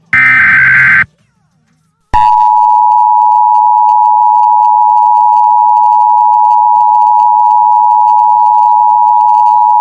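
Emergency Alert System signal: a harsh digital data burst about a second long, the last of the SAME header bursts, then after a short gap the loud, steady two-note attention tone starts about two seconds in and holds.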